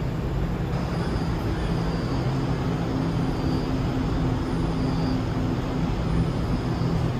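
Steady low hum and rumble of a New York City subway train standing at an underground platform with its doors open, with a faint high whine over it.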